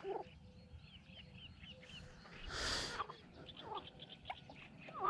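Faint birdsong: a quick run of short high chirps about a second in, with a few lower calls scattered through, and a brief rush of noise around the middle.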